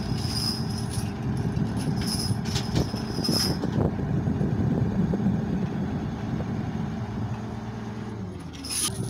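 Diesel engine of a truck-mounted mobile crane running steadily while it lifts a heavy machine, with several short high-pitched squeaks. The engine note drops shortly before the end.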